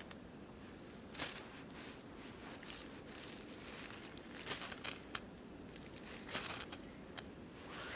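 Dry birch bark and sticks rustling and crinkling as they are handled, in short scattered bursts over a faint steady hiss.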